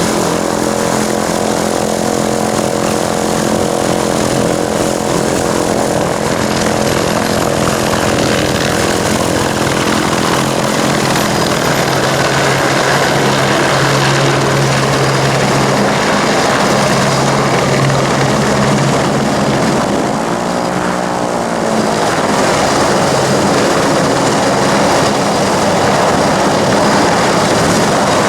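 AS355 Twin Squirrel twin-turbine helicopter arriving, its rotors and engines running loud and steady. The tone shifts with a brief sweeping sound about twenty seconds in as the helicopter moves close.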